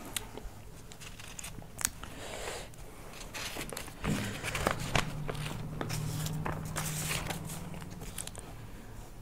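Sheet of paper being handled and turned over, rustling and crinkling, with scattered small clicks.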